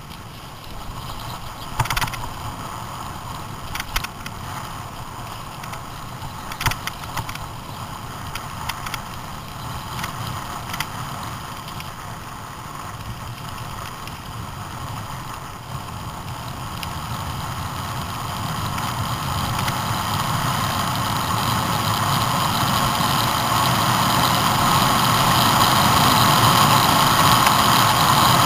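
A vehicle travelling along a rough gravel lane: a noisy rumble and rattle with several sharp knocks in the first ten seconds or so, growing steadily louder from about halfway through.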